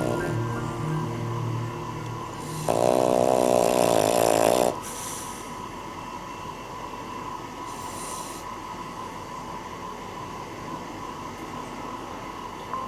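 Cavalier King Charles Spaniel snoring in its sleep: one loud, wavering snore about three seconds in, lasting about two seconds, then quieter breathing with a short airy breath near the middle. Soft background music fades out in the first two seconds.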